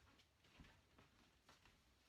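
Near silence: room tone with a few faint light ticks.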